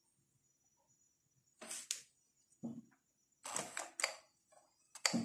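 A cat shifting about on a leather handbag, making short scratching and rustling noises. They come in about five brief bursts, starting about a second and a half in.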